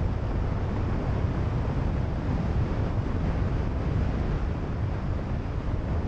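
Steady rush of wind buffeting a helmet-mounted microphone while riding a motorcycle at road speed.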